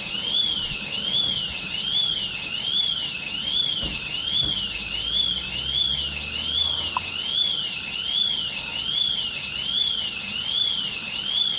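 Electronic alarm siren: a high-pitched tone sweeping steadily up and down, about one rise and fall every 0.8 seconds. A low rumble rises underneath for a few seconds in the middle.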